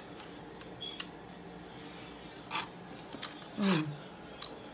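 A person eating hot food, with faint clicks and rustles of handling. There is a breathy puff a little past halfway, then a louder breathy exhale that ends in a short sigh falling in pitch.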